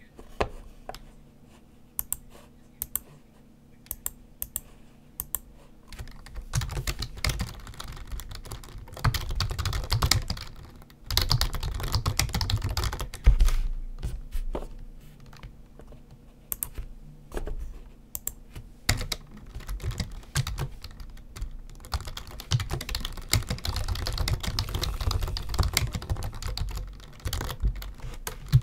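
Typing on a computer keyboard: a few scattered single clicks at first, then fast runs of keystrokes from about six seconds in, broken by short pauses.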